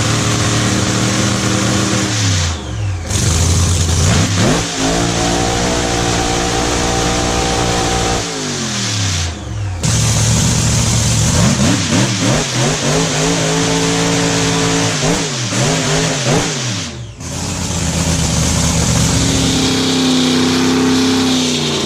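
Drag-racing car engines at full throttle, in four short cut-together clips: in each the engine note climbs, holds high, then drops away in pitch.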